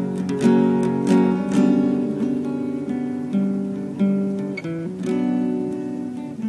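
Acoustic guitar strummed in a slow, steady rhythm, each chord ringing on until the next stroke, with no singing.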